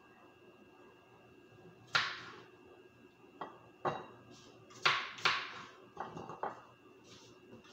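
Cutlery and plates clinking and knocking during fruit cutting: about seven sharp, irregular knocks. The loudest comes about two seconds in, and a cluster follows around four to six seconds in.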